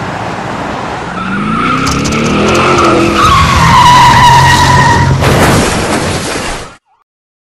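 Vehicle tyres screeching in a long skid over an engine revving higher, the squeal sliding slightly down in pitch. About five seconds in, a harsh noisy burst takes over, typical of a staged collision, and the sound cuts off suddenly near the end.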